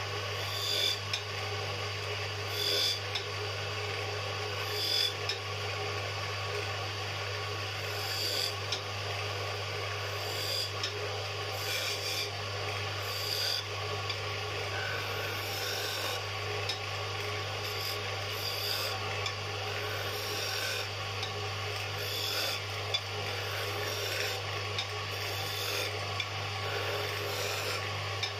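Wood lathe running with a steady low hum while a turning chisel scrapes into the spinning wooden blank, cutting grooves; the cut grows louder in short strokes every second or two as the tool is pressed in.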